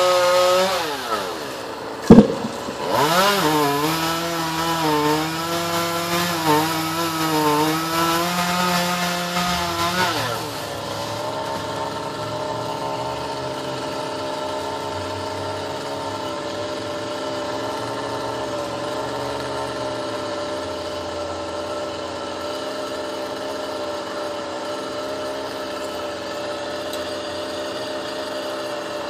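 Chainsaw running at high revs with a wavering pitch, as when cutting into wood, with one sharp loud knock about two seconds in. About ten seconds in the revs drop and the saw runs at a steady, lower speed for the rest of the time.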